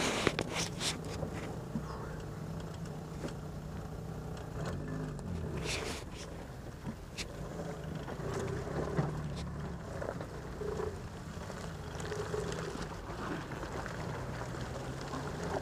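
Military jeep's engine running at low speed in off-road driving, its pitch rising and falling a little with the throttle, with sharp knocks and rattles as the vehicle jolts over ruts.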